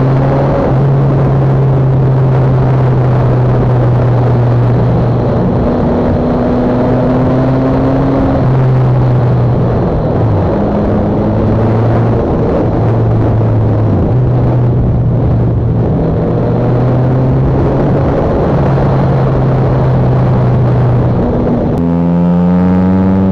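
Motorcycle engine running at road speed under heavy wind noise on the bike-mounted microphone, its note shifting up and down every second or two as the rider works through the curves. Near the end the wind noise drops and the engine note rises and comes through more clearly.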